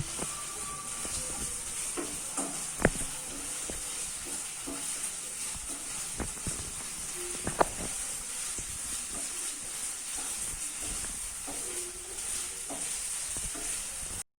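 Onions and ginger garlic paste sizzling as they fry in oil in a pan, with a utensil stirring and knocking against the pan. Two sharper clicks come about three seconds in and again at seven and a half seconds.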